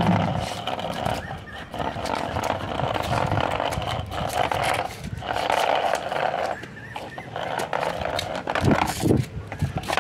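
Small plastic toy auto-rickshaw pulled on a string over rough concrete: its hard plastic wheels and body rolling and scraping with a rattling clatter, in stretches with a few short pauses.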